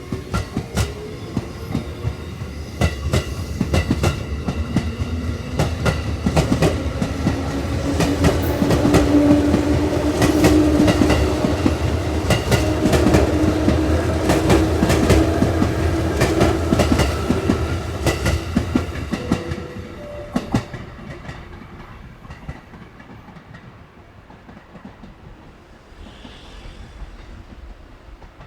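Electric commuter train passing on the JR Chuo West Line, its wheels clacking over rail joints with a steady motor hum. It grows louder to a peak about halfway through, then fades away after about twenty seconds.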